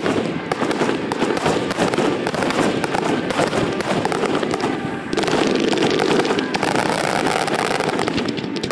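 Fireworks display: a dense, continuous crackle of many bursting shells and crackling stars, dipping briefly about five seconds in.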